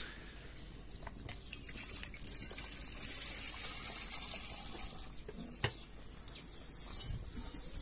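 A large pot of rice boiling hard over a wood fire, bubbling steadily, with a few sharp clicks.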